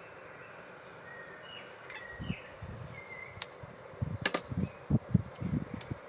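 Knocks and sharp clicks of handling at a Kelly Kettle's fire base as small sticks are fed in to get the fire going, coming thickest in the second half. Birds chirp faintly in the background.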